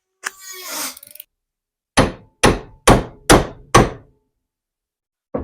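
Five sharp hammer blows on metal, about two a second, each ringing briefly, as the old pin is driven out of a door hinge. A final hit lands right at the end, after a shorter noisy sound near the start.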